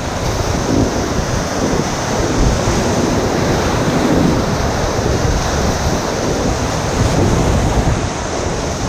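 Whitewater rapids rushing and splashing steadily around a raft, with wind buffeting the action-camera microphone.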